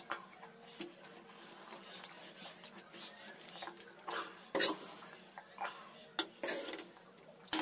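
Eating by hand: mouth chewing sounds and fingers squishing and mixing cooked rice and curry on a banana leaf. Scattered small clicks, with a few short, louder bursts in the second half.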